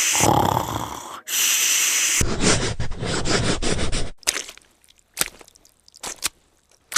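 Cartoon snoring sound effect: a rattling snore alternating with a hissing breath, which stops about four seconds in. A few short, sparse clicks follow.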